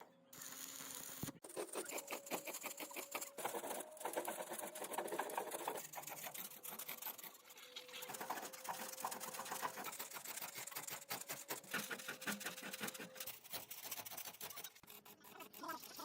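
Angle grinder working on rusted steel plate: a fast, even rattling chatter with a faint steady whine, easing off briefly a few times.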